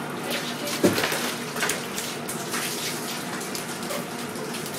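A steady rush of running water, as from a tap, with the short scrapes and clicks of a filleting knife working through flathead on a plastic cutting board, and one thump about a second in.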